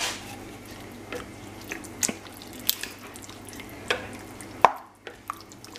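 A spoon stirring a wet chilli mixture of mince, onions and chopped tomatoes in a pan, with a few sharp knocks of the spoon against the pan, the loudest near the end.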